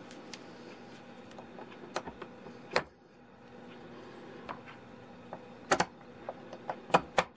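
A snap ring being fitted back onto a ratchet wrench's drive head: about half a dozen sharp small clicks of metal parts at irregular intervals over faint handling noise, two of them close together near the end.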